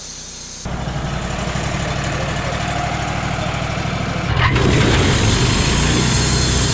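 Wood-Mizer LT35 portable sawmill's engine running, stepping up louder about four seconds in as the mill gets working on the log.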